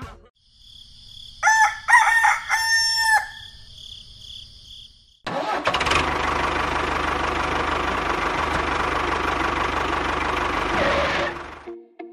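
A rooster crows once. A few seconds later an engine starts abruptly and runs steadily for about six seconds, then fades out; it plays over the toy tractor.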